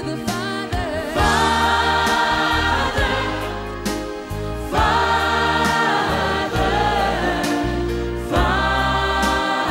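Gospel music: a choir singing over a strong bass, with chords changing every few seconds.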